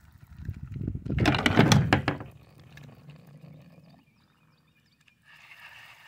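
Knocking and rattling of gear against a kayak's hull, loudest between about one and two seconds in, followed near the end by a short hiss.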